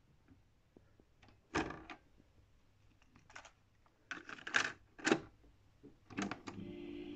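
Plastic clicks and knocks of a National Panasonic RQ-516S boombox's cassette deck as a cassette is loaded and the cassette door is pushed shut: a few separate sharp clicks, the loudest about a second and a half in and around five seconds in. Near the end a key clunks and a steady hum with tape hiss starts.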